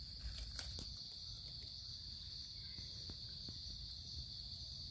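Steady high-pitched drone of forest insects, with a few faint clicks in the first second.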